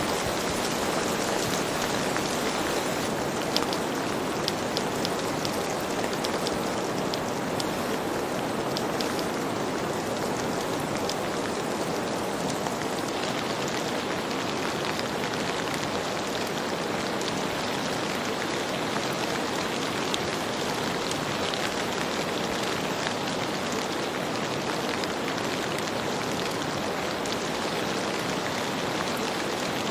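Steady rain falling, an even hiss with sharper individual drop hits scattered through it.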